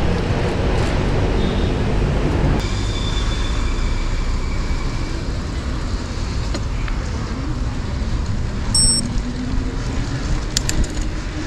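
Road traffic noise in a city street: a steady, fairly loud rumble of passing vehicles.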